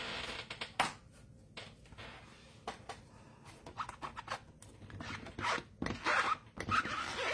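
A cloth rubbing ink off a rubber stamp on a clear acrylic stamping plate: short bursts of scuffing and wiping with a few small clicks, coming thickest in the second half.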